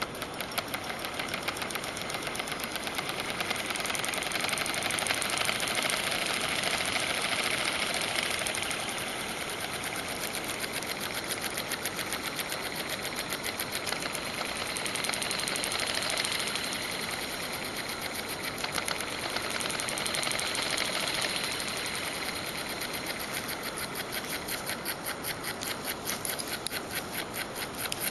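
Homemade solenoid engine running fast: a rapid, even clicking as the solenoid pulls and its contacts make and break on every turn of the flywheel. It runs steadily, growing louder for stretches in the middle.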